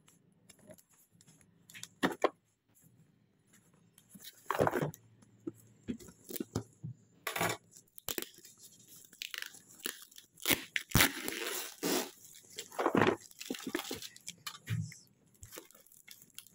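Plastic packing tape and a paper shipping label being torn off a cardboard parcel box by hand, in irregular rips and crackles, busiest in the second half.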